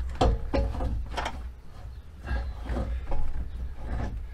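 Cast steel exhaust manifold being worked out of an engine bay by hand, clunking and scraping against the surrounding metal parts in a series of knocks, a few with a brief metallic ring.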